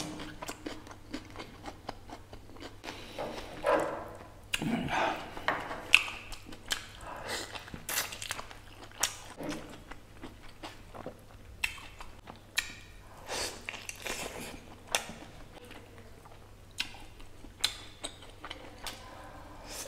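Close-miked eating of mutton nalli curry: irregular chewing and biting of meat off shank bones, with short wet smacking clicks.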